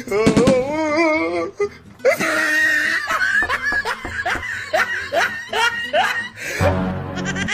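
Comedy sound effects over background music: a wavering, pitched laugh, then a stretch of repeated bursts of laughter.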